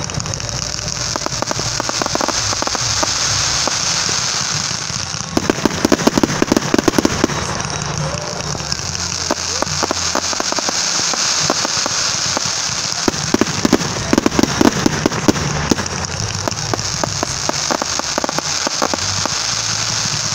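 Fireworks going off in a continuous dense run of rapid pops and crackles, with thicker clusters of sharp pops about five seconds in and again in the second half.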